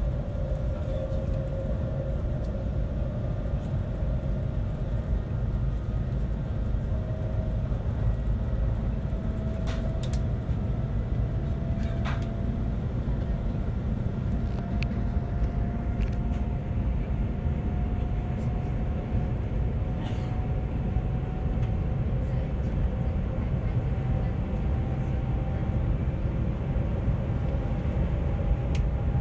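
Cabin noise inside the Shanghai maglev train accelerating past 200 km/h: a steady low rumble, with a faint tone that slowly rises in pitch as the speed builds. A few brief clicks come through in the middle.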